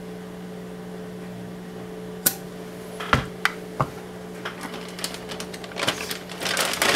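Hard clicks and rattles of an airsoft pistol magazine and parts being picked up and handled on a workbench: a few separate clicks about two to four seconds in, then a quickening run of small rattling clicks near the end. A steady low hum runs underneath.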